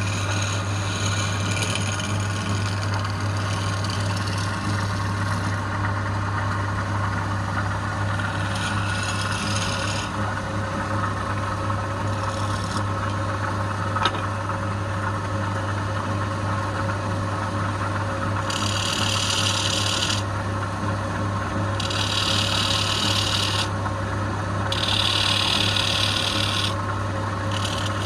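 Wood lathe running with a steady hum, while the spinning wood is worked in spells of hissing scraping that start and stop every few seconds. A single short click comes about halfway through.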